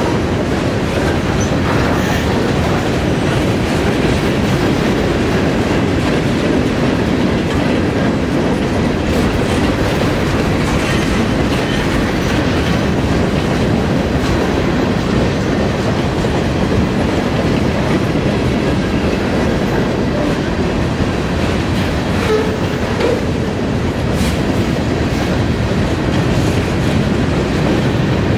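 Freight train cars rolling past: a steady rumble of steel wheels on the rails, with scattered light clicks and no break.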